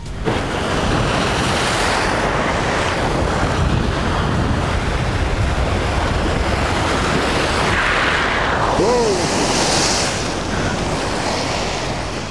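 Sea waves surging and breaking over jetty rocks, a steady rushing wash of surf, with wind buffeting the microphone. A brief squeal rises and falls about nine seconds in.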